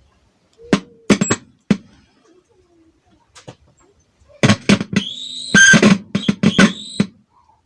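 A Bluetooth speaker box under test playing short snatches of music with sharp clicks, twice, with a quiet gap in between.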